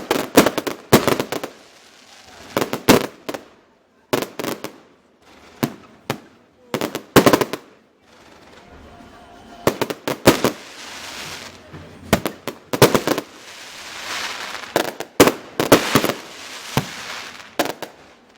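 Fireworks going off: rapid clusters of sharp bangs every second or two, with a hiss under some of the volleys.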